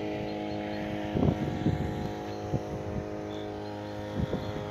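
Petrol string trimmer engine running steadily, driving a boat-propeller attachment that pushes a small boat. A few short knocks come about a second in and again near the end.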